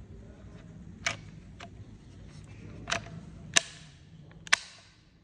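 Five sharp clicks and knocks, the two loudest near the end each trailed by a brief fading hiss, as plastic door handle trim parts are handled and pressed into place on a car door.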